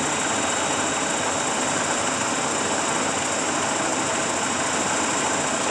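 Monarch 18 x 54 heavy-duty engine lathe running under power: a steady mechanical running noise from the headstock and its 10 HP main motor, with a thin steady high whine over it.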